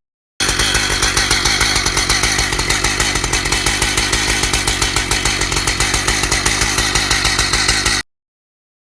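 Chainsaw running steadily at high revs while milling beech, starting half a second in and cutting off abruptly about a second before the end.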